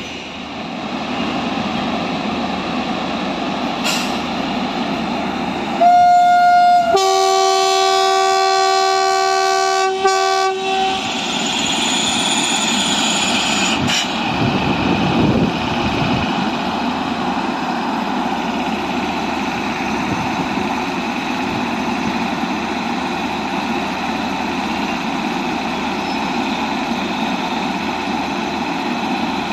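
WAG9 electric locomotive hauling a rake of BCNA covered wagons, with a steady rolling rumble of wheels on rail. About six seconds in, the locomotive's horn gives a short toot, then a multi-tone blast lasting about three and a half seconds.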